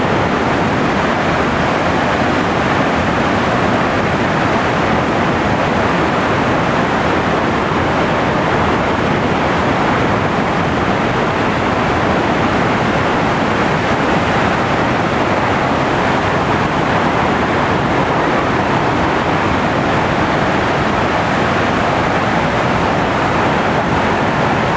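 Devi's Fall waterfall: a loud, steady rush of falling water, even and unbroken throughout.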